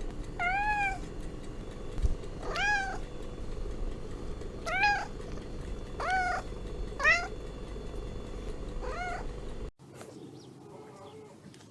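A cat meowing, six short rising-and-falling meows spaced a second or two apart, over a steady low background hum. Near the end the sound cuts off abruptly to a quieter, different background.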